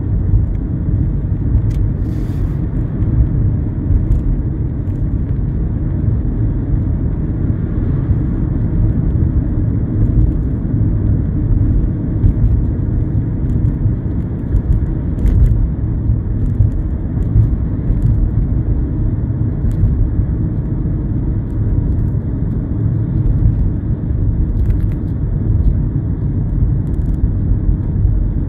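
Steady low rumble of a car driving at a constant town speed, heard from inside the cabin: tyre and road noise mixed with the engine running.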